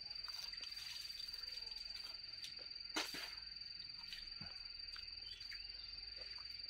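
Close-up chewing and mouth sounds of raw leafy greens and rice being eaten, with a sharp crunch about three seconds in. Under it, a steady high-pitched insect trill runs throughout.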